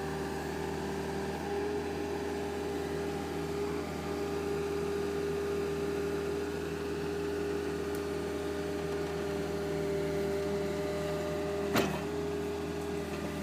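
Compact excavator's engine running steadily with a constant whine, and one sharp knock about twelve seconds in.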